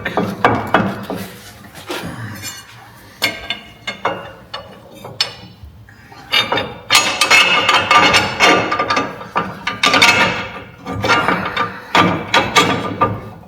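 Steel U-bolts, plate and lift-block hardware being fitted to a truck's front axle: irregular metal-on-metal clanks, knocks and clinks, busiest past the middle.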